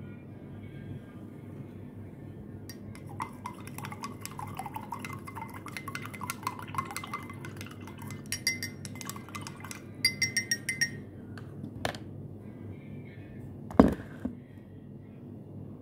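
A spoon stirring in a glass of water, clicking and clinking against the glass in quick runs, as salt is dissolved for an egg-flotation experiment. Near the end there is one dull thump, the loudest sound.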